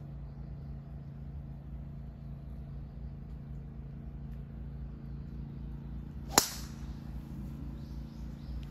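A golf club striking a ball once, a single sharp crack about six seconds in, over a steady low hum.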